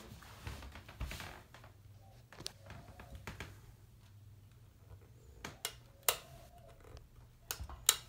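A Casablanca Four Seasons III ceiling fan running in reverse with a low, steady motor hum or buzz. Over it come a dozen or so sharp clicks and taps of handling close to the microphone, the loudest about six seconds in and just before the end.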